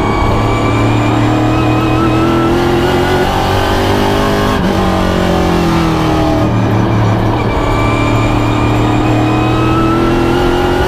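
Pro stock race car's V8 engine heard from inside the cockpit at racing speed, over road and wind noise. The revs climb steadily, drop sharply about halfway through as the driver lifts, then climb again.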